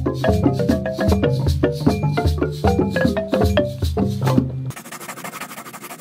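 Music of quick struck notes on a xylophone-type mallet instrument over low bass notes, with shaker and wood-block percussion. About three-quarters of the way through, the pitched notes and bass drop out and only a hissing shaker-like rattle carries on.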